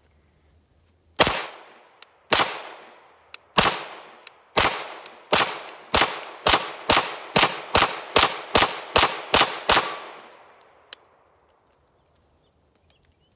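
A CZ Scorpion 9mm pistol fired semi-automatically, about fifteen shots. They begin slowly, over a second apart, then speed up to a steady two to three shots a second before stopping, each shot trailing off in a short echo.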